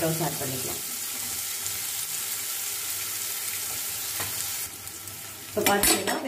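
Sliced onions sizzling steadily in hot oil in a nonstick kadai, with a metal spatula scraping and stirring them at the start and again near the end. The sizzle dips briefly about five seconds in.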